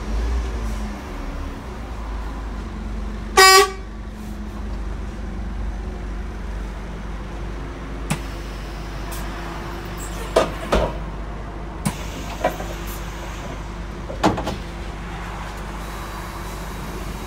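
Scania N230UD double-decker bus's five-cylinder diesel idling steadily, heard inside the bus. A single short horn toot sounds about three and a half seconds in, and a few sharp clicks and knocks follow from about eight seconds on.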